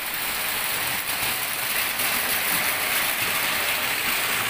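Heavy rain falling steadily, a dense even hiss of drops on the ground and roofs.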